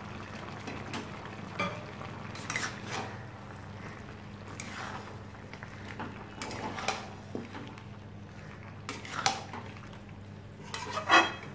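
A spatula stirring and scraping mutton around a kadhai, mixing in ginger-garlic paste and ground spices, with scattered scrapes and clinks against the pan. The loudest scrape comes near the end, over a steady low hum.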